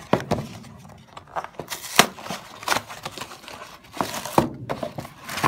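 Cardboard frozen-meal box handled and turned over in the hand: irregular crinkling and scraping with sharp taps, the loudest tap about two seconds in.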